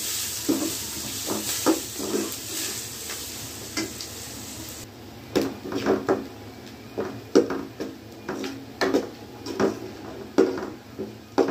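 Sliced onions sizzling as they fry in a steel pot, on their way to browning, while a steel ladle stirs them, scraping and knocking against the pot about once a second. The sizzle drops away suddenly about five seconds in, leaving the ladle strokes to stand out.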